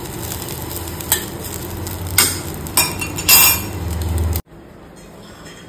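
A steel spoon stirring and scraping poha being reheated in a stainless steel kadai, metal scraping on metal several times over a light sizzle. The sound cuts off abruptly about four and a half seconds in, leaving quieter room tone.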